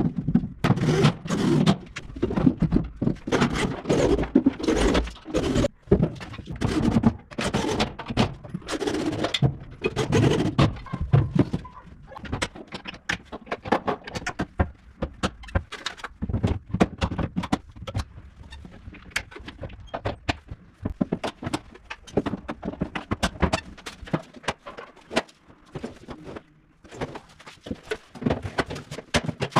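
Irregular knocks, clicks and clatter, thick and busy for the first dozen seconds, then thinning out to scattered sharp clicks.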